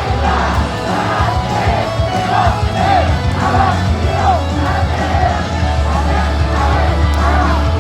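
Amplified pop music in an instrumental break with no lead vocal and a heavy steady bass. Over it, a crowd of fans shouts short calls over and over in time with the music.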